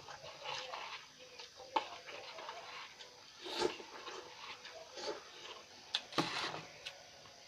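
A person eating Pop Mie instant cup noodles close to the microphone: quiet chewing, broken by a few short louder mouth sounds and sharp clicks.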